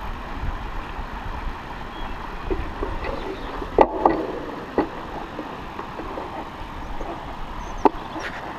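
Wind rumbling on a handlebar-mounted camera's microphone over a steady hiss, with a few sharp clicks and knocks, the loudest about four seconds in and another near the end. The rumble eases off near the end.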